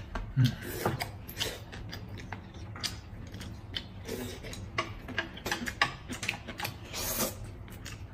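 People eating: chewing and slurping noodles, heard as a run of irregular small wet clicks and smacks, with one longer, louder one about seven seconds in.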